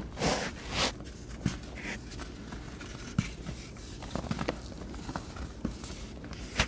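Hands crushing crumbly chalk blocks in a tray of loose powder: two loud crumbling hisses in the first second, then scattered soft crunches and sharp little taps as the lumps break and fall.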